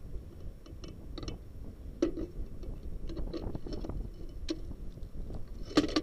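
Scattered light clicks and a few louder knocks, the loudest near the end, over a steady low rumble.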